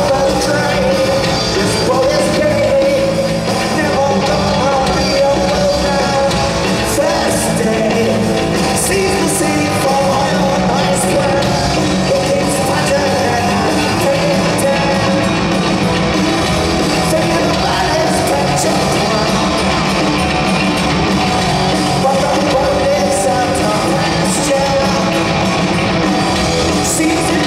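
Punk rock band playing live in a large hall: electric guitars, bass and drums with cymbal hits, and a man singing.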